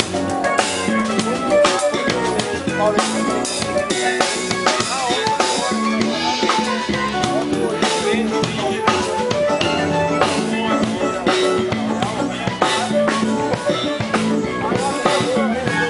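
Electric bass playing a moving bass line with a band, over a drum kit keeping a steady beat.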